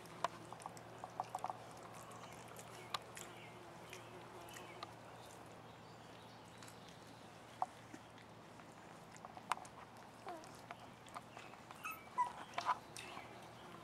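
Three-and-a-half-week-old Australian Shepherd puppies eating from a steel feeding pan, with scattered small clicks and brief faint squeaks, more of them near the end. A steady low hum underneath.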